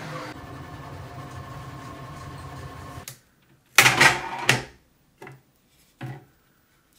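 3D printer running mid-print, its stepper motors giving a steady whine with several held tones; it stops abruptly about three seconds in. Then a loud brief clatter as the build plate is pulled out and handled, followed by a few light knocks.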